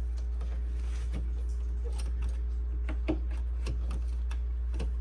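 Scattered light clicks and taps from door latch parts and trim being handled and fitted inside a car door, about half a dozen, the sharpest a little past three seconds in, over a steady low hum.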